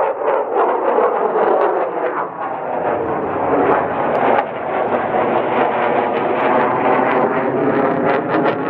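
Lockheed Martin F-35 Lightning II flying overhead, its Pratt & Whitney F135 turbofan making loud, steady jet noise with a rough crackle.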